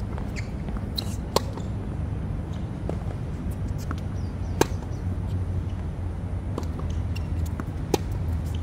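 Tennis ball struck by racquets during a rally: three sharp pops about three seconds apart, the middle one loudest, with fainter ticks between, over a steady low rumble.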